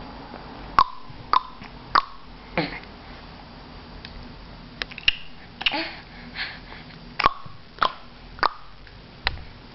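A baby making sharp clicking noises with her mouth, a string of single clicks about every half-second to second, with a pause of a couple of seconds midway.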